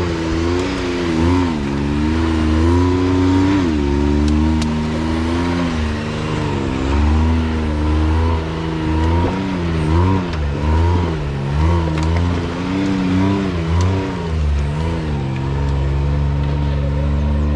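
Turbocharged Can-Am Maverick X3 side-by-side engine revving up and down in repeated short throttle blips as it crawls up a rocky trail ledge.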